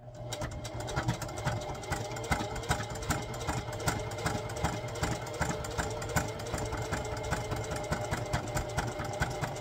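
Singer electric sewing machine running steadily, its needle stitching along the edge of a crest patch through jersey fabric with a rapid, even knocking over a constant motor hum.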